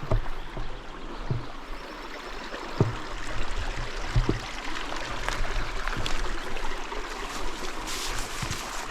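Water running in a mountain stream, a steady rushing, with a few short knocks scattered through it.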